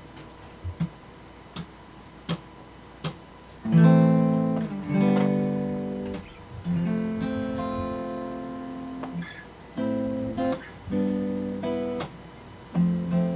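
Four short, evenly spaced clicks counting in, then an acoustic guitar starts strumming and letting chords ring about four seconds in, opening a song.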